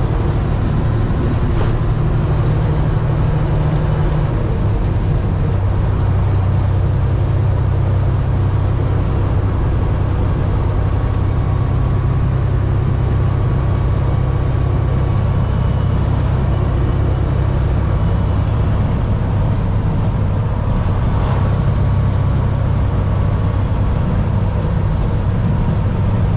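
Semi truck's diesel engine droning steadily under way, heard from inside the cab with road noise. The engine note drops about four seconds in, and a faint high whine comes and goes above it.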